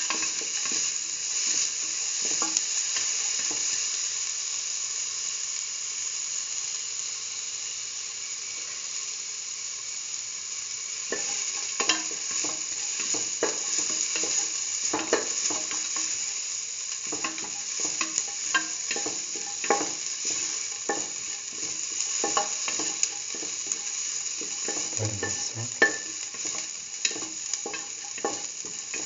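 Chopped onion and garlic sizzling steadily in oil in a metal pan. From about eleven seconds in, a spatula stirs them, with frequent short scrapes and taps against the pan.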